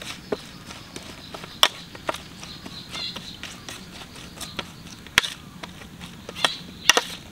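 Spoon clinking and scraping against a stainless steel tray while tossing chopped lemongrass, chili and shallots, with a few sharp, irregularly spaced clinks.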